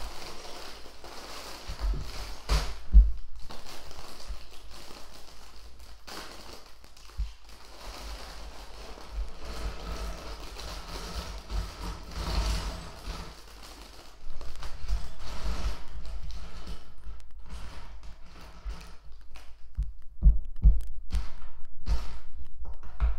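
LEGO pieces being handled and pressed together during a build: irregular small plastic clicks and taps with soft thumps on the table.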